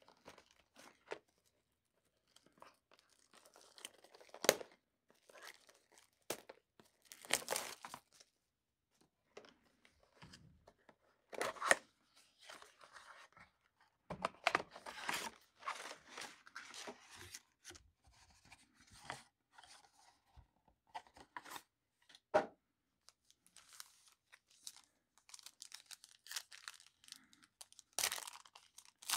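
Plastic wrap and foil trading-card pack wrappers being crinkled and torn open by hand, in irregular bursts of rustling and tearing, with a loud tear near the end as a foil pack is ripped open.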